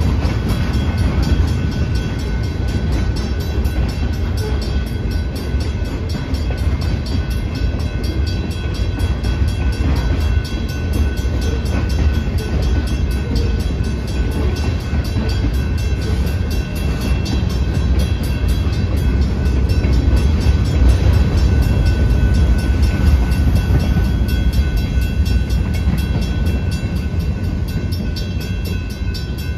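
Freight cars rolling through a road crossing: a heavy, steady rumble of steel wheels on rail, with the crossing's warning bell ringing over it. The rumble eases off near the end as the last car clears, and the bell stops just after.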